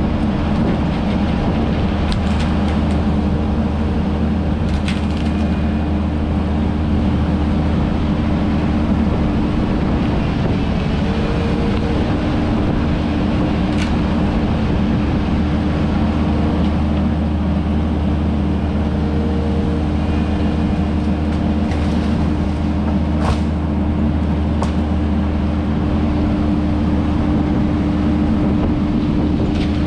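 Kubota SVL75-2 compact track loader's diesel engine running steadily under work, with a few short sharp cracks and clicks over it.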